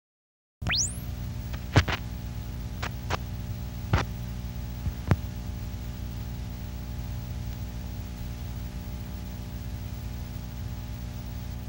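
A steady electrical hum and buzz with many overtones starts suddenly with a quick rising sweep. A few sharp clicks or pops come over it in the first few seconds, then the hum runs on unchanged.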